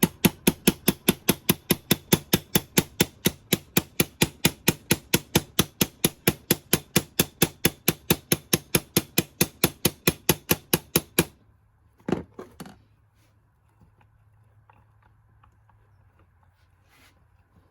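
Rapid, even tapping on a stuck shift rod in a VW Beetle transmission's gear cover, about five light strikes a second for some eleven seconds, to drive the rod along. The tapping stops abruptly, then two or three single knocks follow.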